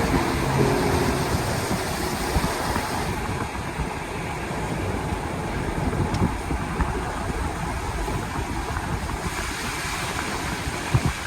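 Car driving, with a steady rush of road and tyre noise and engine hum.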